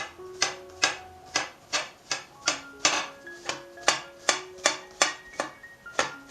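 Background music: a light melody of short, bright mallet-like notes at changing pitches over a sharp clicking beat, about two and a half clicks a second.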